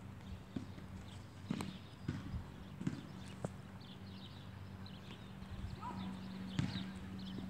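Footsteps while walking, heard as irregular soft knocks about every half second to second, mixed with bumps from a handheld camera being moved, over a steady low hum.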